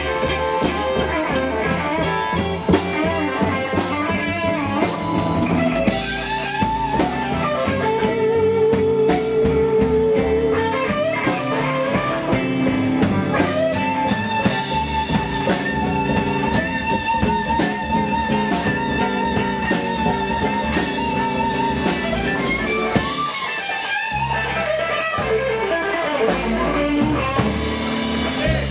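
Live blues band playing an instrumental passage: electric guitar with long wavering held notes over upright bass and drums. The bass and drums drop out briefly near the end.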